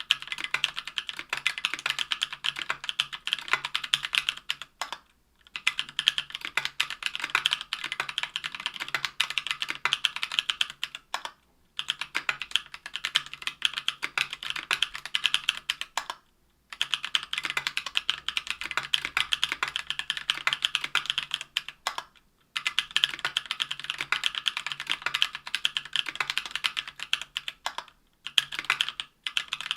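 Fast typing on a mechanical keyboard: stock, unlubed Durock Anubis 65g tactile switches in an aluminium Tofu 60% case with an aluminium plate and GMK keycaps, giving rapid clacking keystrokes. The typing comes in runs of about five seconds, with a short pause between runs.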